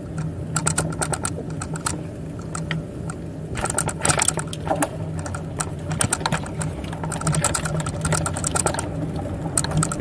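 A bicycle in motion, rattling with rapid, irregular clicking over a steady low hum.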